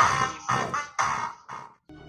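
Music with sharp, quickly fading notes struck about twice a second, cutting off abruptly near the end.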